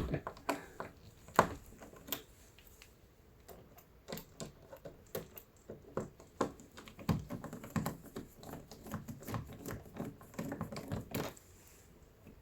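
Screwdriver turning out the small screws of door knob latch hardware: scattered light metallic clicks and taps, irregularly spaced.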